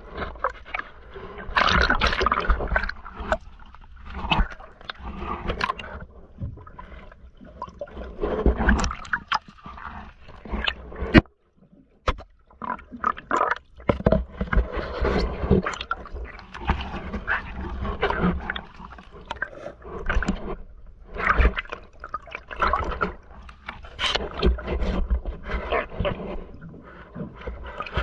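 Underwater recording of a diver's breathing apparatus: irregular rushes of breath through the regulator and rumbling exhaled bubbles, with a brief pause a little after 11 seconds.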